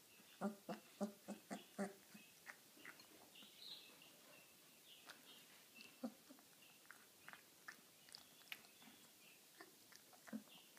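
Eighteen-day-old Irish wolfhound puppy eating: a quick run of small smacking sounds, about four a second, starting about half a second in, then quieter scattered smacks and a few faint high squeaks.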